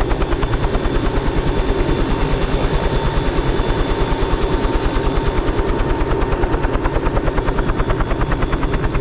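Helicopter in flight: the rotor blades beat in a fast, even thumping of about eleven beats a second, under a faint steady turbine whine.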